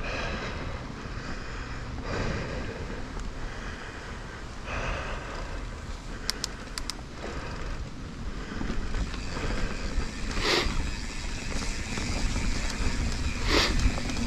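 Mountain bike riding a dirt trail, heard from a bike-mounted camera: a steady rumble of tyres and bike rattle mixed with wind on the microphone. Two short hissy bursts stand out, one about two-thirds of the way through and one near the end.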